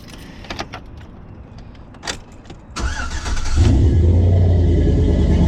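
A few light clicks, then a pickup truck's engine is cranked by the starter and catches about three and a half seconds in, settling into a steady idle.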